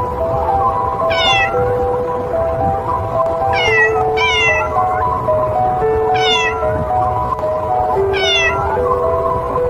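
A cat meowing five times, each short call falling in pitch, over background music of slow sustained notes.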